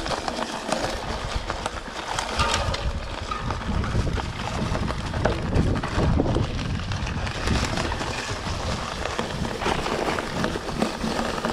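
Mountain bike ridden over rough forest singletrack: tyres rolling over dry leaves and twigs, with frequent knocks and rattles from the bike over bumps and a low rumble underneath.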